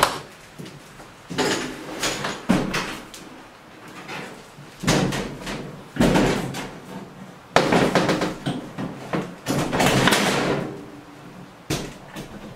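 Clothes dryer being wheeled out through a doorway on a hand truck: knocks, bumps and scraping of the metal cabinet and dolly wheels in several bursts, busiest about eight to ten seconds in.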